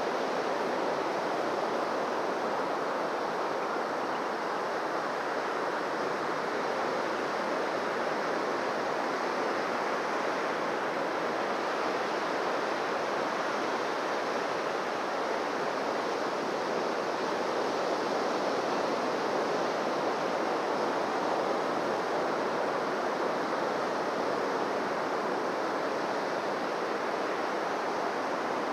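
Surf washing on a beach, a steady, even wash of wave noise.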